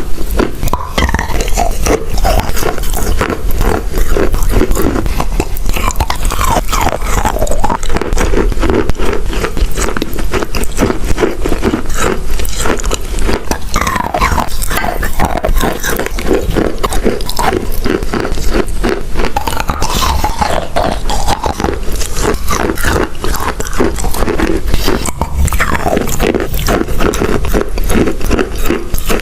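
Chalk being bitten and chewed, a loud, dense run of crunches and crackles without pause.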